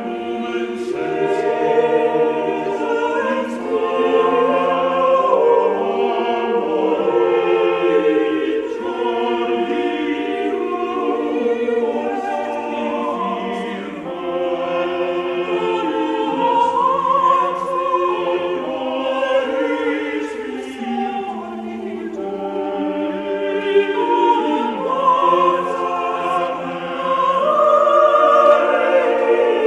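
Choral music: a choir singing in several parts with long, overlapping held notes.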